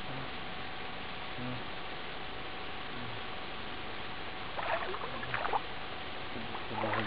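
Water splashing and sloshing from a clothed swimmer's strokes, over a steady hiss and hum. The splashes come in a few short clusters, starting about four and a half seconds in.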